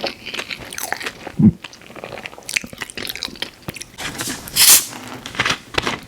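Close-miked mouth sounds of pizza being bitten and chewed: a run of wet smacks and crunches of crust. A short low hum comes about one and a half seconds in, and a loud breathy rush of air about three quarters of the way through.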